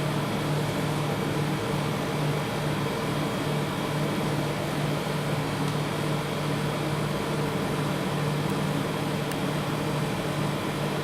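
Steady electric hum of a rolled ice cream machine's refrigeration compressor running under the cold pan, with a constant low drone.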